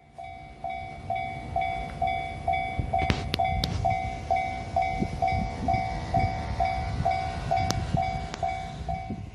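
Japanese railway level-crossing warning bell ringing its steady, evenly repeated tone at about two strikes a second, over a low rumble, with a few sharp clicks.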